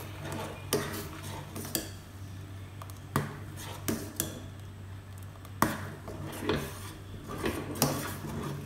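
Steel ladle clinking and scraping against a steel saucepan, with irregular knocks about once a second, as milk thickened with custard powder is stirred without pause to keep it from lumping and sticking to the bottom.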